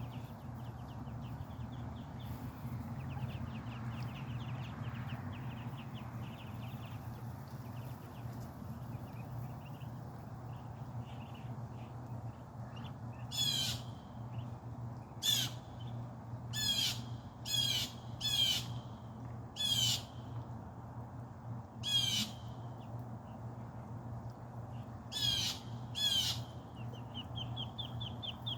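Ducklings peeping faintly in quick high notes, then a bird's loud harsh calls, about nine of them in the second half, over a steady low hum.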